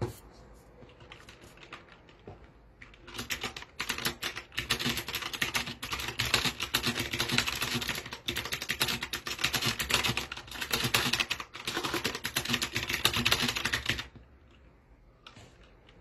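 STOGA mechanical keyboard keys clicking under fast touch-typing: a few scattered key presses, then a rapid, continuous run of keystrokes from about three seconds in that stops abruptly near the end.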